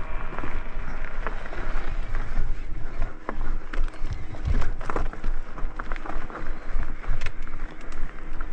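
Electric mountain bike on a rocky mountain trail: irregular clicks and knocks from the tyres and frame over stones, with wind rumbling on the microphone.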